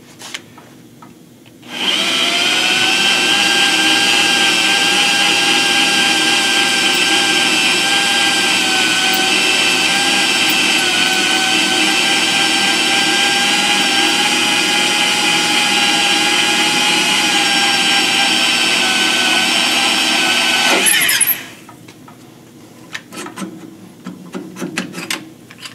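Milwaukee electric drill core-drilling out a valve guide bore in a cast-iron big-block Chevy cylinder head, the step before fitting K-Line guide liners. The drill starts about two seconds in, runs at a steady whine for close to twenty seconds, then stops abruptly, followed by a few light clicks of handling.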